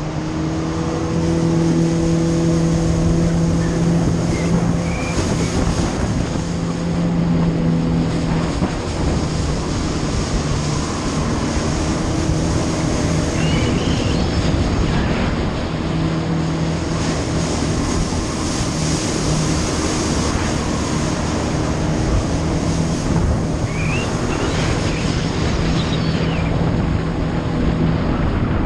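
Yamaha jet ski engine running at a steady pitch at speed, under the rush of water spray and wind on the microphone.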